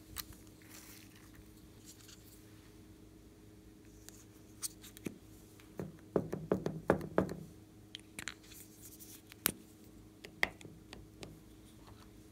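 Small plastic containers and toys being handled and set down on a tabletop: scattered clicks and taps, with a quick run of louder knocks about six seconds in, over a faint steady hum.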